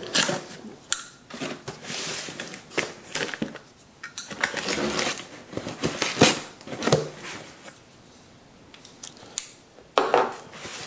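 Folding pocket knife slicing through packing tape on a cardboard box, followed by tape being peeled off and cardboard flaps scraping and rustling in irregular rips and scrapes. There is a sharp rip or scrape about ten seconds in.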